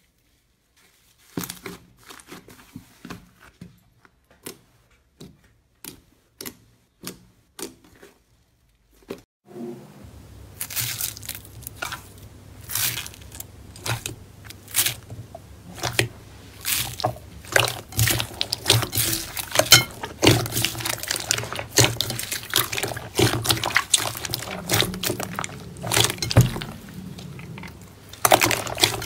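Slime being handled: first a fluffy slime stretched with sparse small pops about half a second apart, then from about ten seconds in, clear slime kneaded and squished into white granules in a glass bowl, with dense wet crackling and squelching.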